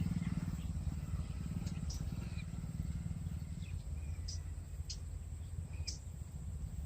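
Short, high bird chirps every second or so over a steady low rumble.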